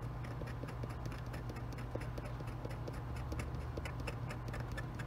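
Curved hobby-knife blade scraping a small styrene kit part, making rapid, irregular little scratching ticks as it shaves an ejector pin mark smooth. A steady low hum runs underneath.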